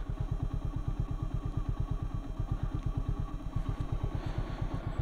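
Motorcycle engine idling steadily at a standstill, an even low rapid pulsing.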